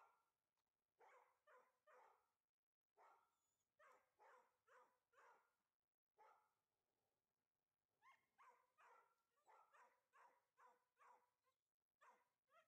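A dog barking faintly in irregular runs of short barks, two or three a second within a run, with pauses of a second or two between runs.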